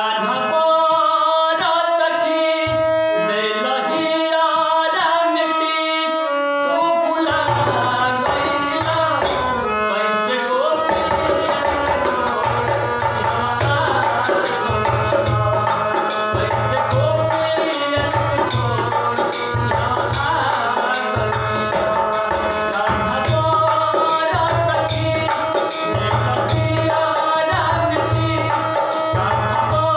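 Devotional bhajan: a male voice singing over a harmonium melody, with a hand-drum beat joining about seven seconds in and keeping a steady rhythm.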